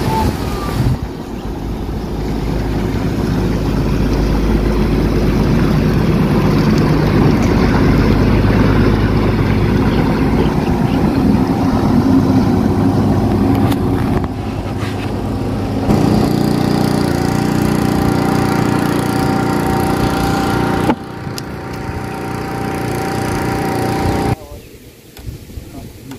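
Houseboat's engine running steadily as the boat passes close by. The sound changes abruptly a few times, about 14 and 21 seconds in, and drops much quieter near the end.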